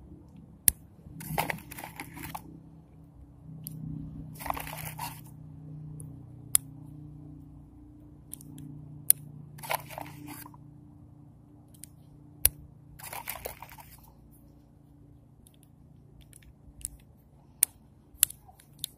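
Heritage .22 single-action revolver being reloaded by hand: a series of sharp metallic clicks several seconds apart as the cylinder is turned and cartridges go in, with short bursts of rustling handling noise in between.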